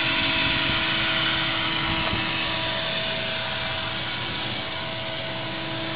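Steady mechanical hum with a few steady whining tones underneath, easing slightly in level.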